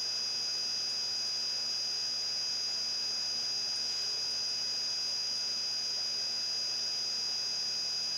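Steady electrical hum with a high-pitched whine and a hiss: background noise from the recording equipment.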